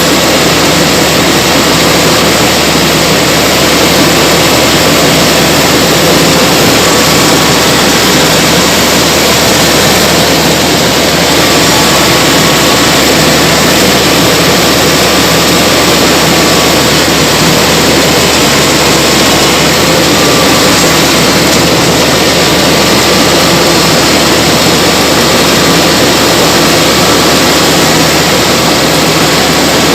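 Paddy combine harvester running steadily while cutting rice: loud, constant engine and machinery noise with faint steady whines and no change in pace.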